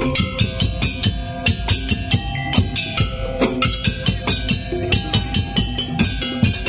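Madurese daul (tong-tong) percussion ensemble playing a fast, dense rhythm of drums and wooden knocks, with held pitched melody tones over the beat.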